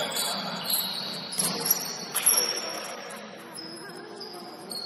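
Basketball shoes squeaking on the gym floor in play: a string of short, high squeaks, with a few knocks mixed in, louder in the first half.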